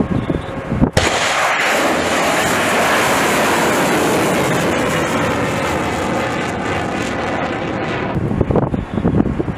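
Short-range ballistic missile launched from an M270 MLRS launcher. Its rocket motor ignites suddenly about a second in, and a loud, steady rushing roar follows for several seconds. The roar fades near the end as the missile climbs away.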